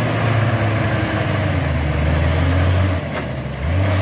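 Diesel engine of a loaded Hino cargo truck labouring up a steep climb. Its note drops about one and a half seconds in, falls away briefly near three seconds, then picks up again.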